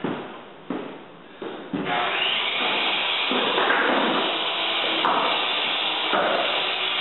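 Hardwood floorboards knock and clatter a few times as they are set down, then a power tool runs loudly and steadily for about six seconds.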